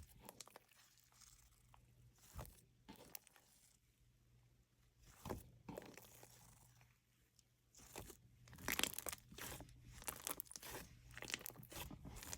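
Slime being pressed and squeezed by hand, making crunching, crackling sounds: a few scattered crackles at first, then denser, louder crackling from about two-thirds of the way in.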